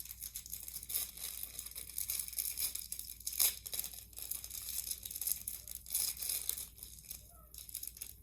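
Plastic packaging crinkling and tearing as a star-shaped mochi squishy toy is pulled out of its bag: a rapid, uneven run of crackles.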